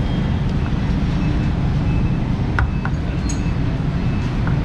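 Busy street ambience: a steady low rumble of traffic, with a few short sharp clicks or clinks around the middle.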